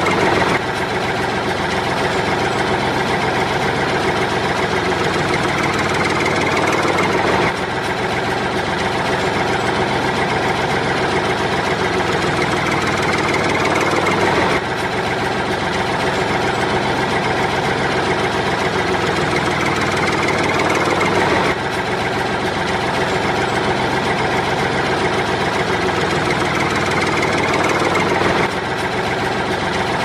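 Tractor engine idling steadily. It is a recorded loop that starts over about every seven seconds.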